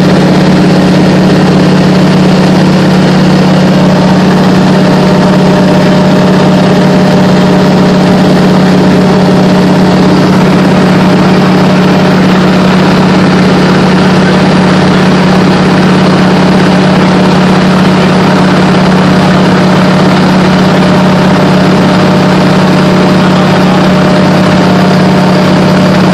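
De Havilland Canada DHC-2 Beaver floatplane's engine and propeller droning steadily in level flight, heard loud from inside the cabin. A strong low hum holds one unchanging pitch throughout.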